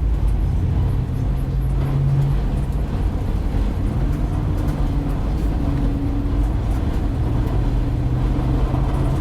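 A work van driving: steady engine hum and road rumble.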